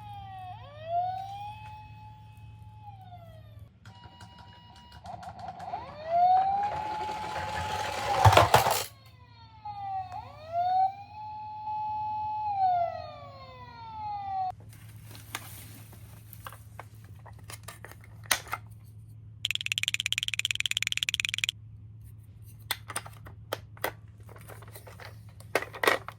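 Toy ambulance's electronic siren wailing, rising, holding, then falling, over and over, with a loud clatter about eight seconds in. The siren stops about halfway through, leaving scattered plastic clicks and a brief buzzing electronic tone.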